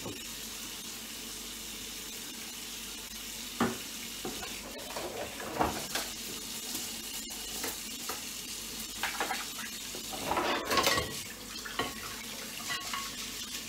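The microwave's turntable plate and its parts being handled: scattered clinks and knocks of dishware, with a longer stretch of rubbing about ten seconds in.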